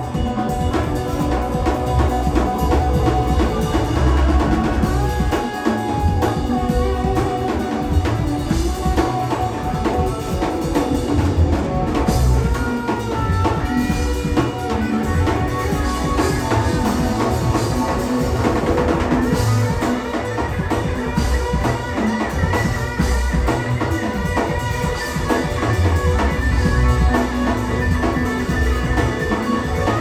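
Live band playing loudly: drum kit, electric guitar, electric bass and keyboards together, with no vocals transcribed.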